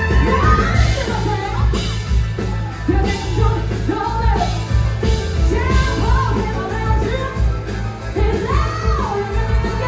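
A woman singing lead in a raw, belting voice over a live rock-and-roll band with a steady driving beat.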